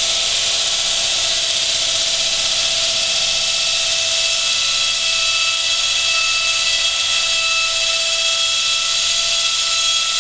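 Concrete wall saw's diamond blade cutting through a concrete wall: a steady high whine over a loud hiss that holds without a break.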